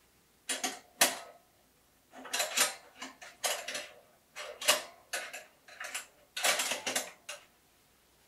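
Stainless steel clothespin hooks rattling against a wire dish rack and snapping shut as a dishcloth is pinned up: a string of short metallic clinks and rattles with pauses between them.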